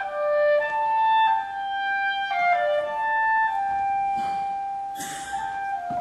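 Solo clarinet playing a slow melody in its upper register, moving stepwise between notes and holding one long note through the second half.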